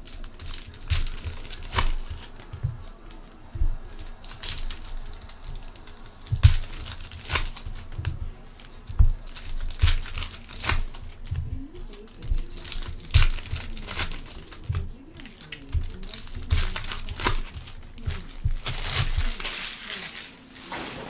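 Foil trading-card packs being torn open and crinkled by hand, in a string of irregular crackles with soft knocks as cards are handled. The crinkling thickens near the end.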